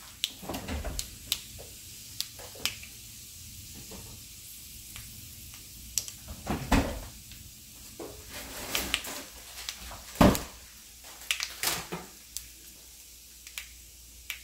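Mustard seeds and black gram frying in hot sesame oil in a stainless steel wok: a low sizzle with irregular sharp pops and crackles as the mustard seeds burst, the loudest pops about seven and ten seconds in. It is the crackling stage of tempering the seasoning.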